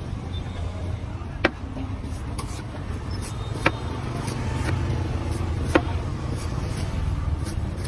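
Cleaver chopping the husk of a young green coconut: three sharp chops about two seconds apart, with a few lighter cuts between, over a steady low rumble of street traffic.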